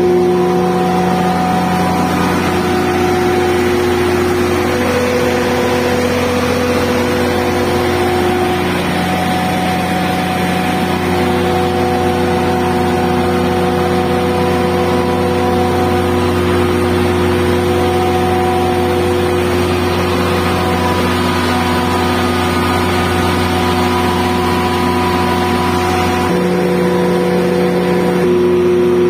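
Large turbocharged diesel standby generator set running steadily at its rated speed, with a constant hum. Its alternator is delivering 220 V.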